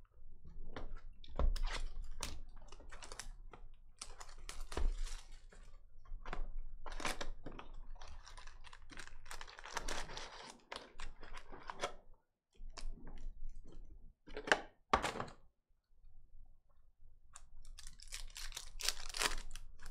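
Crinkling and rustling of a Panini Prizm retail card box being torn open and its foil card packs handled and stacked. There are two sharp knocks about two-thirds of the way through, and more crinkling of pack foil near the end.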